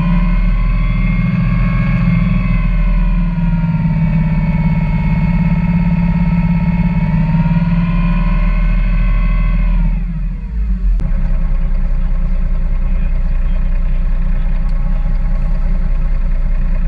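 Parker 750 Baltic RIB's engine running at speed with a whining pitch that wavers slightly. About ten seconds in the throttle comes back: the pitch drops quickly and the engine settles to a low, steady idle as the boat comes off the plane.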